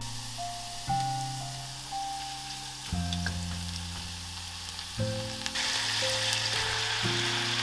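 Minced garlic sizzling in sesame oil in a cast-iron Staub cocotte, a steady frying hiss that grows louder about two-thirds of the way through. Soft background music with slow held notes plays underneath.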